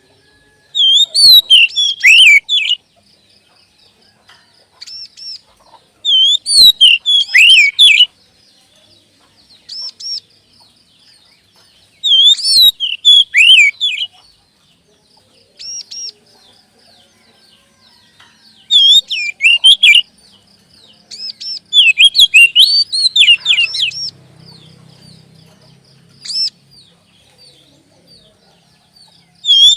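Oriental magpie-robin singing a song-lure recording: loud bursts of rapid, sliding whistled phrases, each about two seconds long, every five or six seconds, with single short whistles in between.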